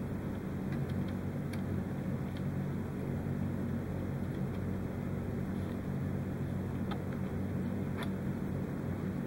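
Steady low hum of background room noise, with a few faint ticks as thin wires are twisted together by hand.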